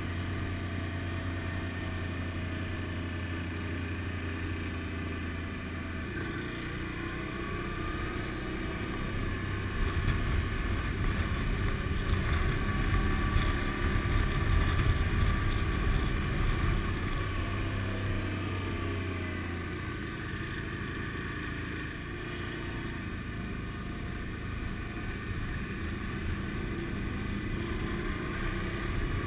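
Motorcycle engine running at low road speed, heard from on board. It is steady for the first few seconds, grows louder and rougher with shifting pitch for several seconds in the middle, then settles back to steady running.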